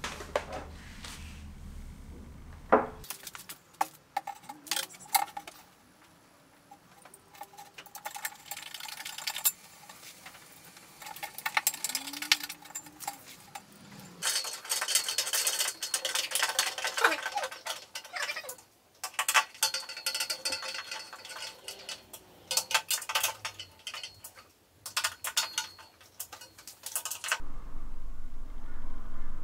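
Hand assembly of flat-pack furniture: metal drawer runners and screws clinking, clicking and scraping against particleboard panels as a screwdriver drives screws, in irregular bursts.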